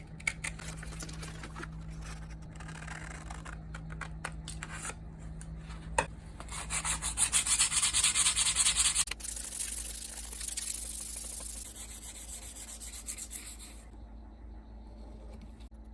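Abrasive polishing of a rusty axe head's steel: quiet scraping, then a loud run of quick back-and-forth strokes in the middle that eases off into softer rubbing.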